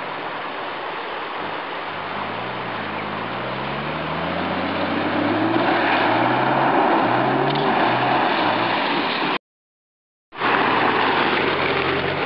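Off-road 4x4's engine revving as it drives through shallow water on a pebble beach, its pitch climbing again and again in a series of rises and growing louder as it comes closer, with a wash of splashing water in the middle. The sound cuts off abruptly for about a second near the end, then engine noise from another off-roader resumes.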